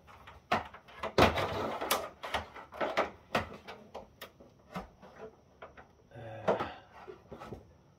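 Irregular clicks, knocks and scrapes of a screwdriver and the power cord being worked at the rear of an oscilloscope's case, with a louder knock and a brief rustle about a second in.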